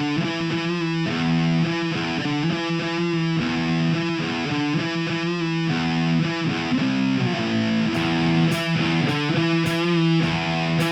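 Background music led by distorted electric guitar playing sustained chords, with cymbal hits joining about eight seconds in.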